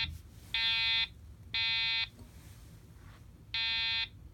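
EST Genesis G4F-S2 fire alarm speaker sounding an electronic horn tone in the temporal-three evacuation pattern: the last two half-second beeps of one group a second apart, a pause of about one and a half seconds, then the first beep of the next group near the end.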